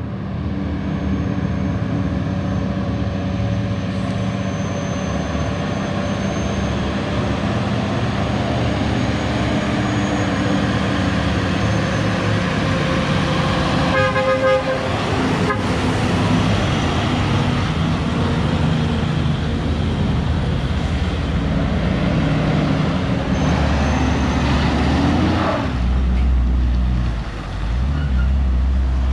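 Heavy trucks and cars passing on a curve, their engines running over tyre and road noise. A horn sounds in short pulses about halfway through. Near the end a deep, heavy truck engine drone grows strongest.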